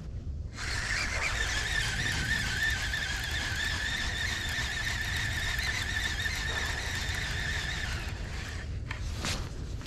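Baitcasting fishing reel being cranked on a steady retrieve: a high, slightly wavering whir that starts about half a second in and stops about eight seconds in, followed by a few clicks near the end.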